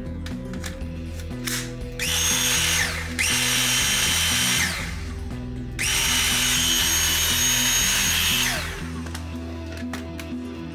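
Dyson V8 cordless stick vacuum switched on three times. Each time its motor whines up to speed with a rush of air and winds down when the trigger is let go; the last run is the longest, about three seconds. Background music plays underneath.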